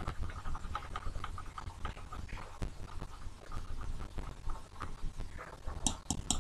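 Faint, irregular scratching and tapping of a stylus on a drawing tablet as the board is erased, over a low steady hum. A few sharper clicks come near the end.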